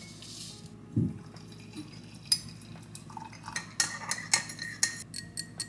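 Metal spoon stirring drink mix in a ceramic mug, clinking against its sides in a quick run of clinks through the second half. Before the clinks come a short hiss as the powder is poured in at the start and a single thump about a second in.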